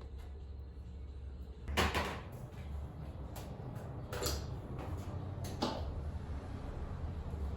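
A few short knocks and handling sounds, like a cupboard, door or lid being moved, the loudest about two seconds in and three more spaced about a second apart, over a steady low hum.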